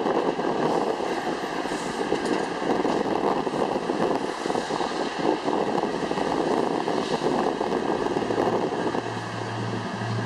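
Vacuum truck running steadily: an even rushing engine and machinery noise with faint steady high tones above it.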